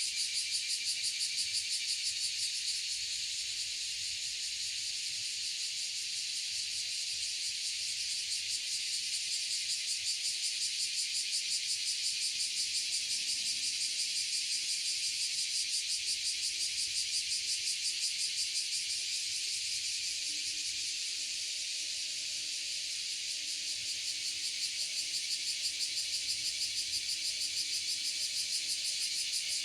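Insects chirring in a dense, steady chorus: a high-pitched, rapidly pulsing trill that does not let up.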